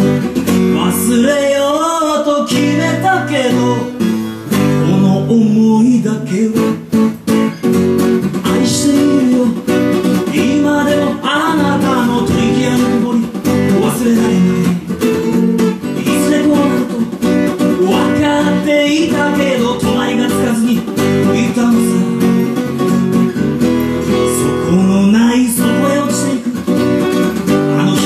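A man singing to his own strummed acoustic guitar, the voice coming in and out over steady chords.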